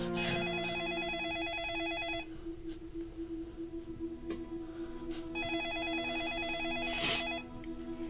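Telephone ringing with a warbling trill: two rings of about two seconds each, about three seconds apart. A short rushing noise comes just before the second ring stops.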